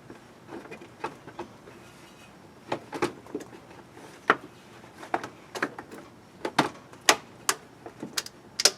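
Metal hand tools (screwdrivers and a wrench) clicking and tapping irregularly against the engine's belt tensioner and pulleys while the tensioner is being pried at, with the engine off.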